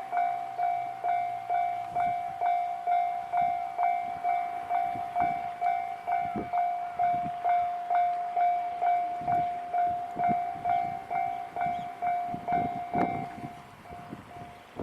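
Japanese railway level crossing warning bell ringing in a steady, rapid rhythm of about two strokes a second. Near the end a train's wheels begin clattering over the rail joints as it nears the crossing, and the bell grows fainter.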